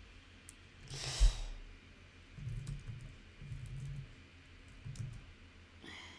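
Light clicking of typing on a computer keyboard, with a breathy sigh about a second in and a short breath near the end.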